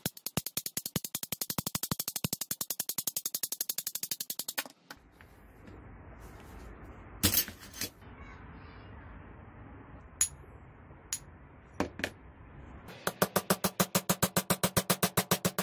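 Rapid, even mechanical clicking, about a dozen clicks a second, from a tool working on an old angle grinder's bevel gear and shaft. It runs for almost five seconds, then a few single sharp metal clinks come, then another run of the same clicking near the end.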